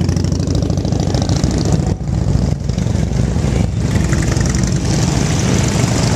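Several heavy touring motorcycles rolling past close by in a slow procession, one after another, their engines running at low revs with a steady, pulsing low rumble.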